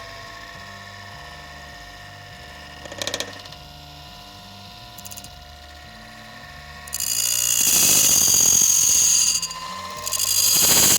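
SabreTooth automatic bandsaw blade sharpener running: its motor hums steadily, with a short clatter of the mechanism about three seconds in, then a loud hissing grind for about two and a half seconds and again near the end as the grinding wheel works a tooth.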